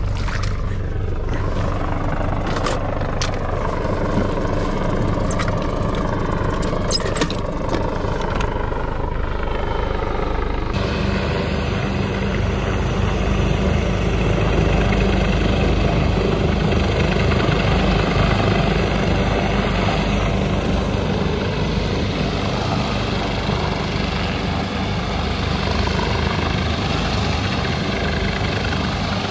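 Boat engine running under way, a steady low rumble mixed with wind and water noise, with a few sharp knocks in the first several seconds.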